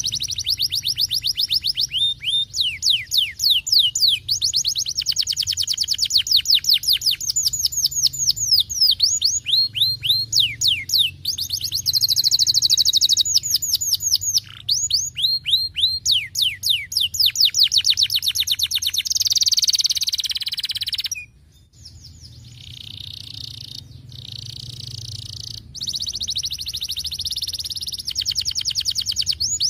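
Domestic canary singing: fast trills of rapidly repeated, falling whistled notes, switching from one trill to another. There is a short pause about three-quarters of the way through, then buzzier rolling trills.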